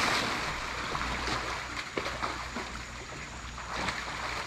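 Swimming-pool water splashing and sloshing around a person in chest waders and a belted surf top who has just jumped in. The entry splash is loudest at the start and settles into steady churning with small splashes as he flounders at the surface.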